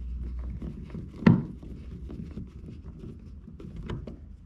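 Screwdriver turning the screws of a YakPower switch panel in a plastic kayak hull, snugging it down to compress the waterproofing gasket: small clicks and scrapes, with one sharp knock about a second in and a few lighter ones near the end.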